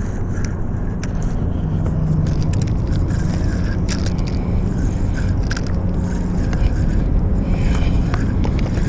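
Steady low rumble of road traffic on the bridge overhead, with scattered irregular clicks and rubbing from a spinning reel being cranked and the rod handled.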